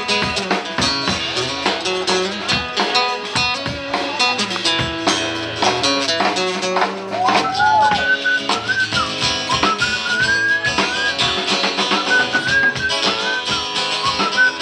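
Live acoustic guitar strummed with a drum kit in an instrumental stretch with no singing. About halfway through, a high sliding melody line comes in over them.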